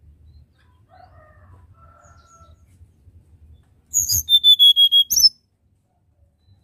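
Male hill blue flycatcher singing one short, loud, high-pitched phrase about four seconds in: a sharp opening note, then a fast run of repeated whistled notes on one steady pitch, ending in another sharp note.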